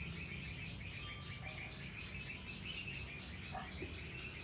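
Small birds chirping, a continuous run of short repeated chirps over a low steady background rumble, with one sharp click about three and a half seconds in.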